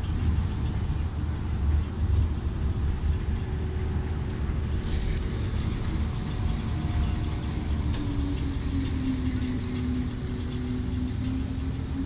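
Passenger boat's engine running with a steady low drone and a faint hum that drifts slightly in pitch, heard from the deck. A brief sharp tick about five seconds in.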